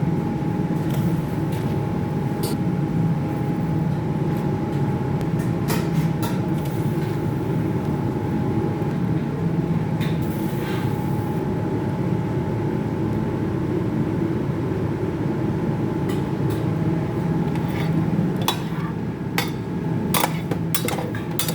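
A steady mechanical hum with a thin whine, with scattered clinks and knocks of pots and utensils that come faster near the end.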